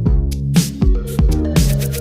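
Electronic background music with a steady beat: deep kick thumps, a sharp hit about once a second, and a sustained bass line.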